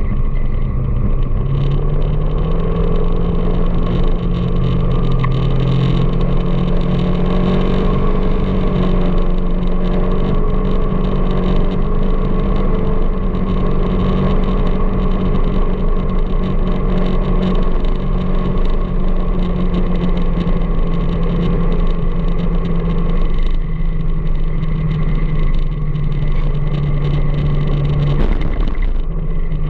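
A vehicle engine running steadily while riding through city traffic, a continuous hum over road noise. Its pitch steps up about a second and a half in and dips briefly near the end.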